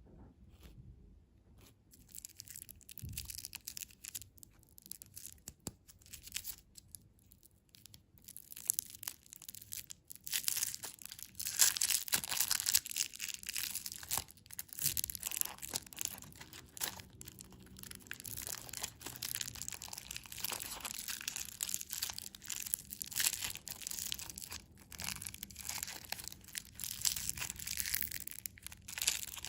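Candy packaging being torn open and crinkled by hand: a dense, irregular crackling that starts faintly a couple of seconds in and grows much louder about ten seconds in.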